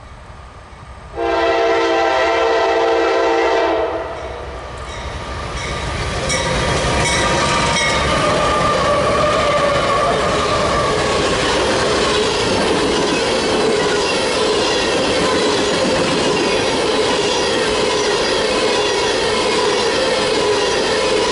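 Canadian Pacific diesel locomotive's air horn sounds one long chord about a second in, cutting off a little under three seconds later. The train then passes close by, and its freight cars roll past with steady wheel-on-rail noise.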